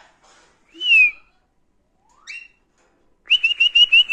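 Clear whistled notes. One quick rise-and-fall whistle comes about a second in and a short rising glide a little later. Near the end comes a rapid run of about seven short, even whistle notes.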